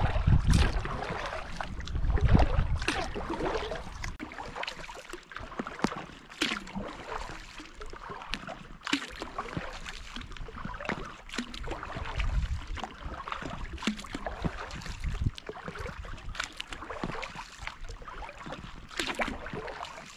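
Kayak paddling: the paddle blades dipping and splashing, with water dripping off them in irregular small splashes. Gusts of wind rumble on the microphone, strongest in the first few seconds.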